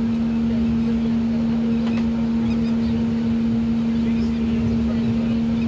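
Passenger train coach running along the track, heard from its open doorway: a low rumble with a steady hum.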